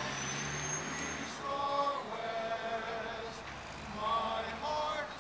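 Men's barbershop chorus singing in held chords, heard over the open air through a PA. During the first second or so a passing truck's high hissing whistle covers the voices, then the chords come through clearly.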